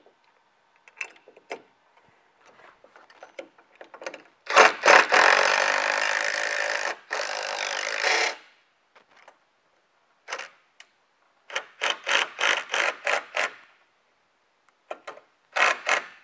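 Cordless impact wrench driving 3-inch lag screws through the steel crank bracket into the wall. It runs loudly for about four seconds, then gives a quick string of short bursts as the screw is snugged, with lighter clicks and taps in between.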